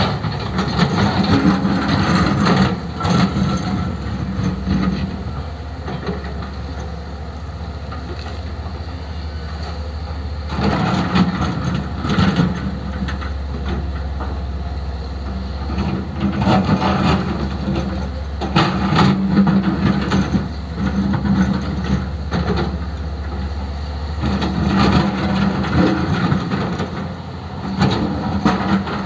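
Hyundai HX220S excavator's diesel engine running steadily, growing louder in stretches of several seconds as it works under hydraulic load, with scattered knocks and rattles from the digging.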